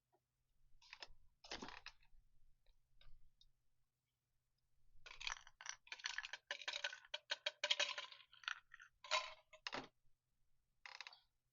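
Wood campfire crackling, faint and irregular: clusters of sharp clicks and pops, busiest in the middle and second half.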